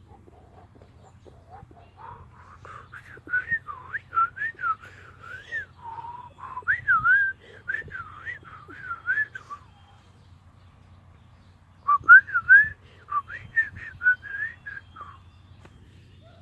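A person whistling a warbling, wavering tune in two stretches, with a pause of about two seconds between them.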